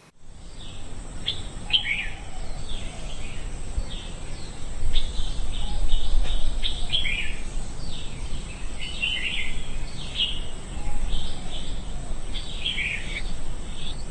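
Birds chirping in many short, quick calls, some dropping in pitch, over a steady low rumble.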